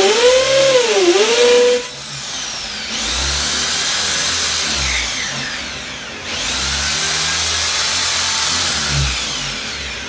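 Corded electric drill running and boring into a drawer front to fit a lock cylinder, its motor pitch dipping as the bit bites. About two seconds in it turns to a harsher, noisier whir, eases off briefly about six seconds in, then speeds up again.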